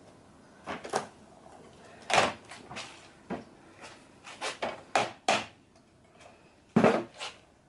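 Irregular clicks and knocks of retractable screen parts being handled and fitted by hand, about a dozen in all, with the loudest about two seconds in and near the end.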